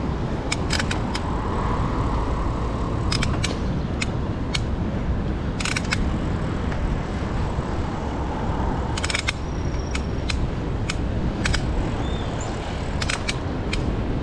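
Wind rushing over the microphone and a steady rumble of riding a mountain bike, with a short sharp rattle every one to three seconds as the bike goes over bumps.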